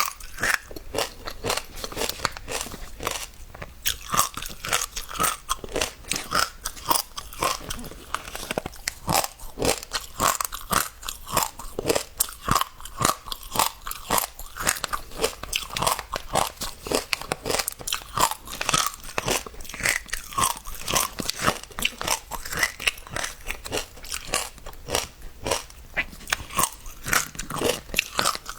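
Passionfruit seeds crunching and popping as they are chewed: a dense run of crisp cracks, several a second.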